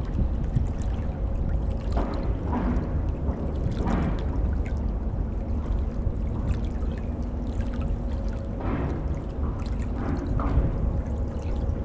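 Water sloshing and splashing in short surges close to the microphone, over a steady low rumble with a faint hum from a passing Great Lakes ore freighter.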